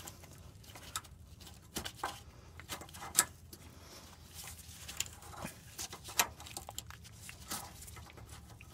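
Light clicks, taps and scrapes of a gloved hand working a steel fuel line's threaded nut into the fitting on a fuel lift pump, with one sharper click about three seconds in.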